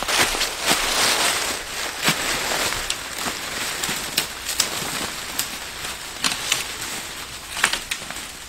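Fallow deer carcass dragged through dry fallen leaves, with footsteps: a steady rustle of leaves broken by many sharp crackles of twigs, growing fainter toward the end.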